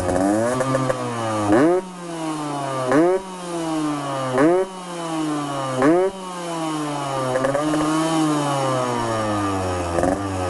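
Yamaha RX-King 135cc two-stroke single with a Packing Power PK1 aftermarket exhaust, revved in place. It gives four quick throttle blips about a second and a half apart, each jumping up in pitch and dropping back to idle, then a longer, slower rev that rises and eases off, and another short blip near the end. It has a low exhaust note and revs very freely.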